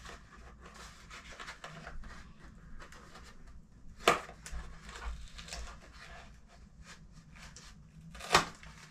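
Cardboard box being handled and pried open by hand: cardboard flaps rubbing and scraping, with two sharp clicks, one about four seconds in and one near the end.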